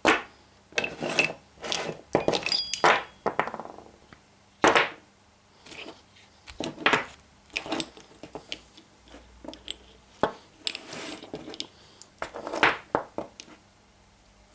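Steel quick-change tool-post holders and lathe cutting tools being handled and set down, clinking and knocking irregularly, some knocks with a short metallic ring.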